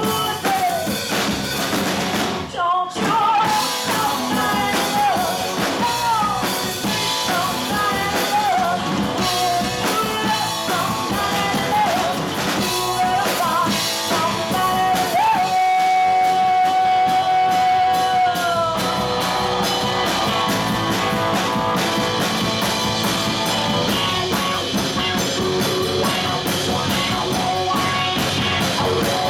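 Live rock band: a woman singing lead over electric guitar, electric bass and a drum kit. She holds one long note a little past halfway, and for the last third the band plays on without vocals.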